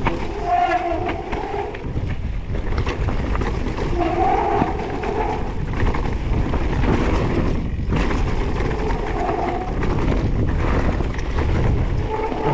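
Wind buffeting the microphone over the steady rumble and rattle of an electric mountain bike riding down a rough trail, with a few short whining tones every few seconds.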